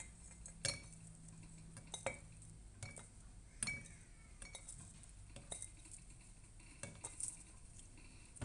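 Spoon stirring roasted mixed nuts in a jar: faint, irregular clicks and clinks as the nuts knock against each other and the jar.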